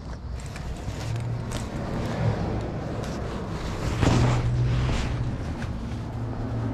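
Plastic shopping bag rustling and crinkling as an item is pushed into it, loudest about four seconds in, over a steady low hum.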